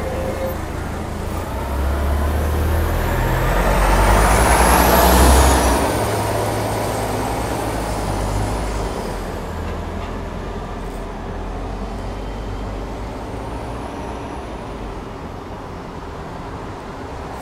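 New Flyer D60HF articulated diesel bus pulling away from the stop: the engine's low rumble builds as it accelerates, loudest about five seconds in, with a high whine rising and then falling. The sound then fades steadily as the bus moves off down the street.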